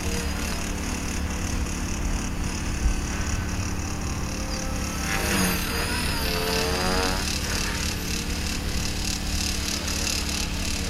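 Steady buzzing drone of a radio-controlled model aircraft's electric motor, with wind rumble on the microphone. About five seconds in, a short wavering, warbling sound lasts for about two seconds.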